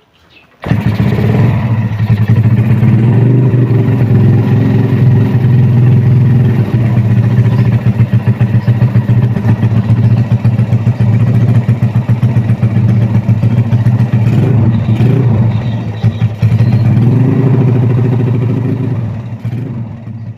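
Bored-up Yamaha Jupiter Z's single-cylinder four-stroke engine running loud and lumpy at idle, starting suddenly just under a second in, with a few brief blips of the throttle and fading away near the end.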